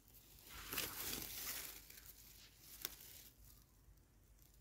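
Dry soil and roots rustling and crumbling as a freshly dug wild yam tuber is handled by hand, loudest about a second in. A single sharp click comes near three seconds.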